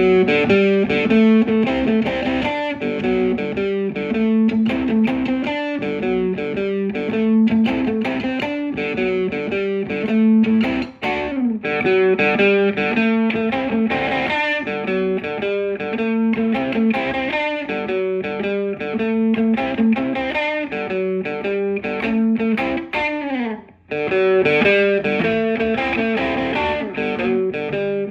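Fender Stratocaster electric guitar on its bridge and middle pickups together, played through a Maxon Vintage Overdrive Pro overdrive pedal. It plays a repeating riff of notes and chords, with two brief breaks, about eleven seconds in and again near the end.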